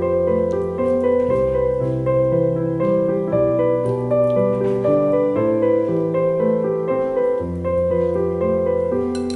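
Background piano music: a gentle melody over long held bass notes.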